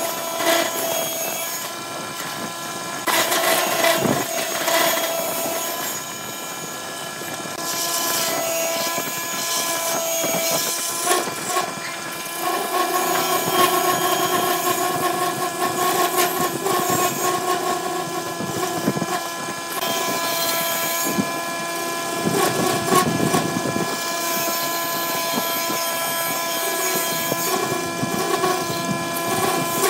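Wood lathe running with a steady motor whine while a hand-held tool cuts into the inside of a spinning wooden cup. The cutting adds a rough scraping hiss that comes and goes as the tool is pressed in.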